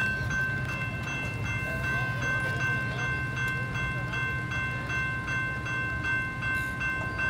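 Railroad crossing warning bell ringing in steady rapid repeats while the crossing gates rise, over a low steady rumble.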